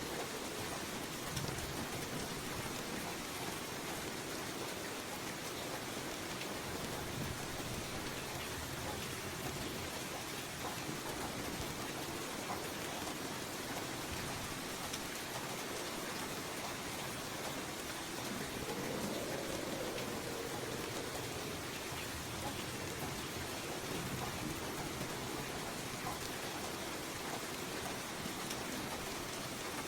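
Steady rain falling, an even hiss of drops, with a low wavering rush underneath that swells briefly about two-thirds of the way in.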